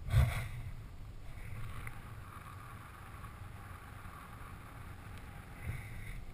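Wind buffeting the microphone during a descent under an open round parachute: a steady low rumble, with a louder burst just after the start and a smaller one near the end.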